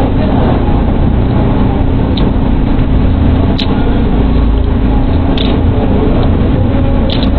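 Steady, loud hum with a low rumble and a constant pitch throughout, with a few light clicks spread across it.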